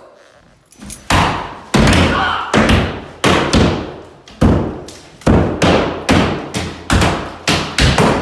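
Claw hammers striking drywall, several people hitting out of step: a string of loud thuds at roughly one to two a second, starting about a second in.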